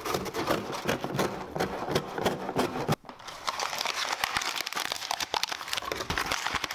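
Packaging being handled: irregular crinkling, rustling and small clicks of plastic wrap and cardboard as a headphone box is opened, with an abrupt break about three seconds in.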